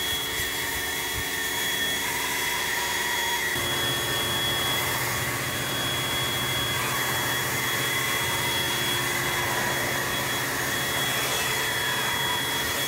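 Leaf blower running steadily, blowing corn dust and residue off a combine; its note shifts a little about three and a half seconds in.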